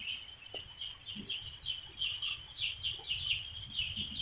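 Birds chirping continuously: a dense run of short, high cheeps, several a second. A faint low rumble lies underneath.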